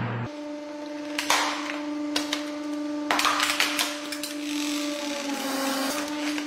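Hydraulic press crushing a plastic bicycle helmet: the shell and foam crack and snap in a few sharp bursts over the press's steady pump hum. The hum dips slightly in pitch near the end as the ram draws back.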